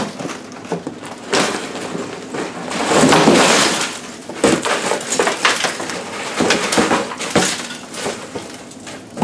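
Cardboard box shaken and tipped by hand, loose hard pieces clattering and clinking around inside it, with cardboard scraping and rustling. There are irregular loud clusters of rattling throughout rather than a steady sound.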